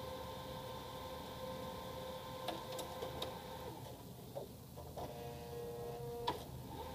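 HP LaserJet CP1025 colour laser printer's mechanism running: a steady motor whine with a few sharp clicks. Midway the whine falls away and a different whine runs for about a second, then a click, and the first whine resumes.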